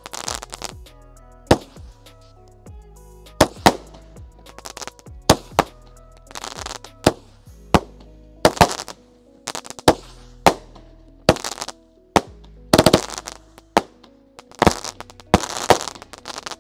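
Mad Ox Vapor Trails 200-gram daytime fireworks cake firing: a string of sharp reports, about one or two a second, some trailing into a brief crackle, over background music.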